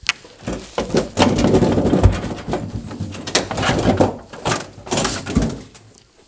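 Plastic evaporator cover panel inside a side-by-side freezer being pulled up and out of the liner: a stretch of scraping and rubbing plastic, with two knocks, about two seconds in and near the end.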